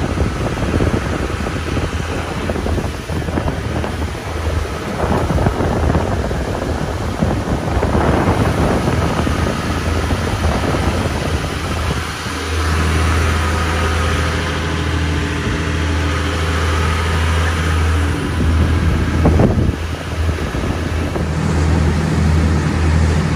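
Wind buffeting the microphone and water rushing past a sportfishing boat under way. From about twelve seconds in, the boat's engines drone steadily underneath.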